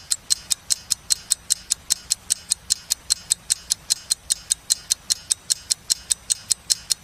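Countdown clock-ticking sound effect: sharp, high-pitched, evenly spaced ticks at about five a second.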